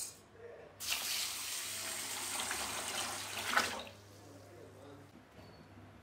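Water pouring into a steel bowl of raw rice to wash and soak it, a steady splashing rush for about three seconds. It starts a little under a second in and stops shortly before four seconds, with a brief louder splash just before it ends.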